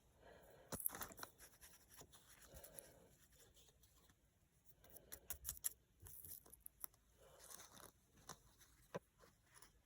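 Faint scratching and scraping with scattered light clicks, in short spells, from a coin being scrubbed and handled.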